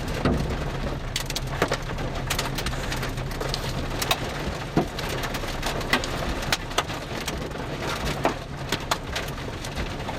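Rain falling steadily on a vehicle, with many scattered sharp taps of drops over a steady low hum.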